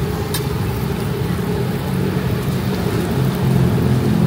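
Steady low rumble of street traffic, with one sharp click about half a second in.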